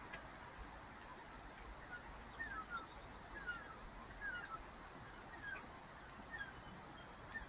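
Short high chirping calls, each falling in pitch, repeating about once a second over a steady background hiss.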